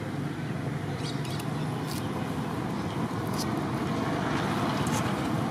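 Steady rumbling background noise with a few faint, short clicks scattered through it.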